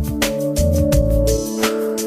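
Background music: held synth or instrumental notes over a steady beat.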